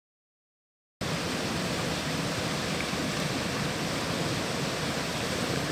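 Steady rushing of a fast-flowing river, setting in abruptly about a second in and holding even throughout.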